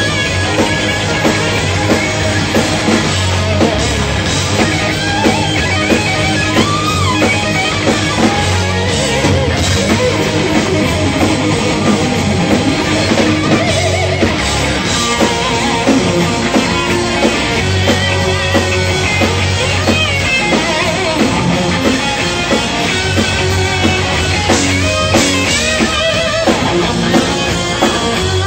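Live hard-rock band playing loudly without a break: electric guitars over bass and a drum kit.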